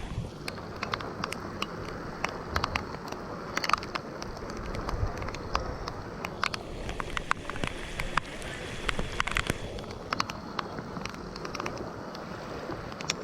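Steady rain falling, with many short sharp ticks of single drops striking close by.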